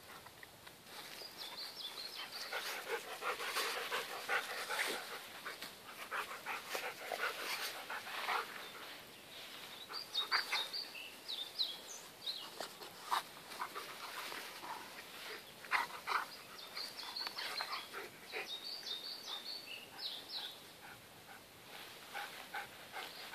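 Dog panting through rough-and-tumble play with a young European badger, with uneven scuffling and rustling in the grass and short high chirps coming in clusters.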